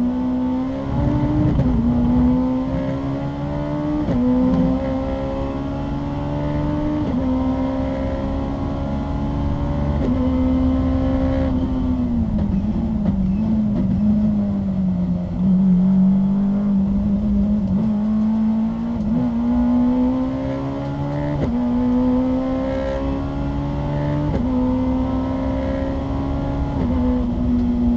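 Honda S2000 race car's 2.0-litre four-cylinder engine heard from inside the car under hard acceleration. Its note climbs and drops sharply at each upshift, sinks lower and wavers as the car slows for a corner about halfway through, then climbs through the gears again.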